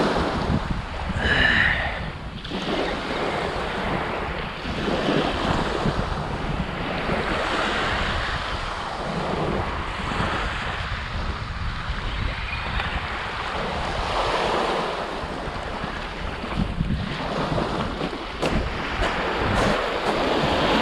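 Small waves washing onto a pebble beach, swelling and easing every few seconds, with wind rumbling on the microphone. A few sharp clicks near the end.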